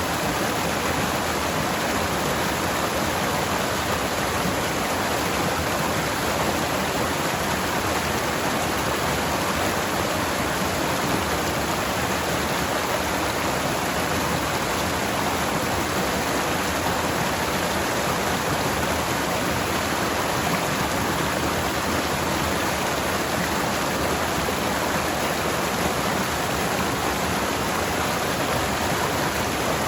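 Forest stream water rushing over rocks, a steady, even flow.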